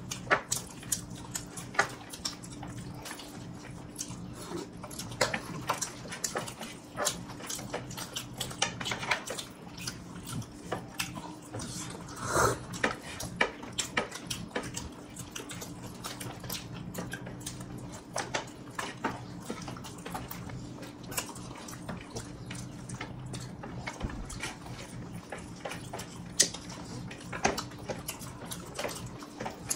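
People eating biryani with their hands: wet chewing and lip-smacking, a steady run of short smacks and clicks over a low, even hum. One slightly louder mouth sound comes about halfway through.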